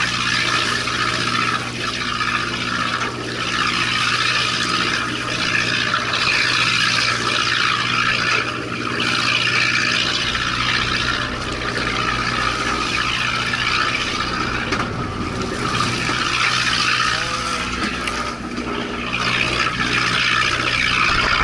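Steady rush of sea water and wind along a fishing boat's hull over the low, even hum of the boat's engine running.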